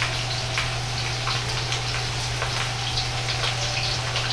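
Taro sticks and shrimp deep-frying in hot oil in a wok: a steady sizzle with scattered crackles, over a steady low hum.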